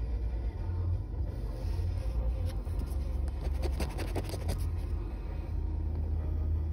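A copper penny scraping the coating off a scratch-off lottery ticket: a run of quick scratching strokes from about a second in until just past the middle, over a steady low rumble.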